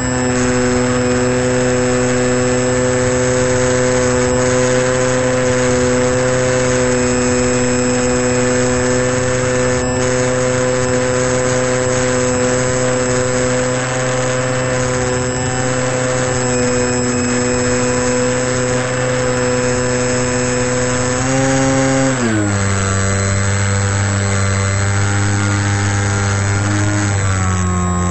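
Onboard sound of a model airplane's motor and propeller running at steady cruise throttle, with a steady whine over wind rush. About three-quarters of the way through, the pitch drops sharply as the throttle is pulled back, then rises a little near the end.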